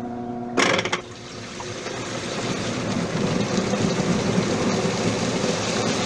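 LG TurboDrum top-load washing machine run in spin with its motor and drain motor wired directly, bypassing the control board. A steady hum ends with a sharp clunk about half a second in, then the basket spins up with a rushing mechanical noise that grows steadily louder. The spin working shows the motor and drain-motor clutch are in good order.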